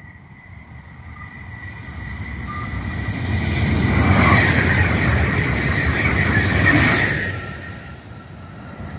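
High-speed electric passenger train passing at speed: a rushing noise that builds over the first few seconds, is loudest for about three seconds as the train goes by, then fades quickly.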